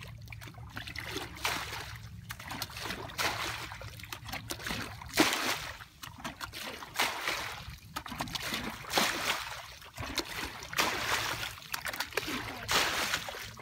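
Plastic bucket bailing shallow muddy water: repeated scoops and splashes as the water is thrown out, about one every second or so.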